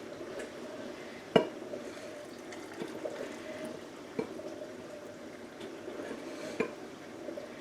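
Brine pouring from a pitcher into glass canning jars of pickles, with three light knocks of glass.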